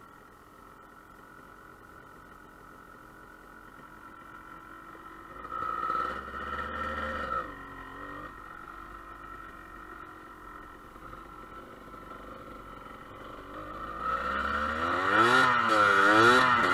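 Dirt bike engine running at low revs while the bike rolls along a trail, revving briefly about six seconds in. Near the end it gets louder, with the engine revs rising and falling as the throttle is worked.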